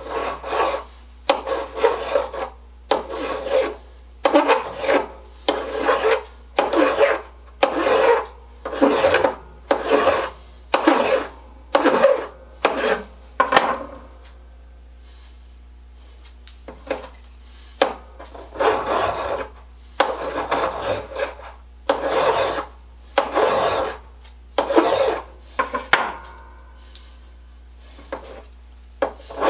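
Hand file rasping back and forth across a small metal part held in the hand, in steady strokes a little over one a second. The strokes stop for a couple of seconds about halfway through, then resume.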